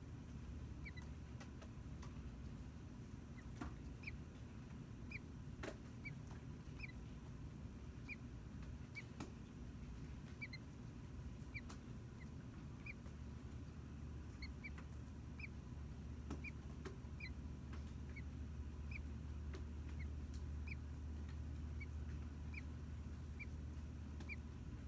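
Faint high peeps from newly hatched American robin nestlings in the nest, short and repeating about once a second, over a steady low hum.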